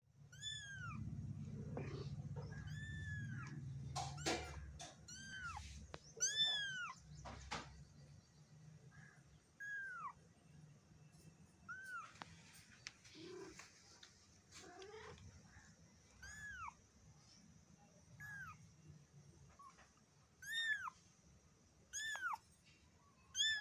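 Black kitten mewing over and over: about a dozen short, high-pitched cries that rise and fall. They come closest together in the first several seconds, under a low rumble.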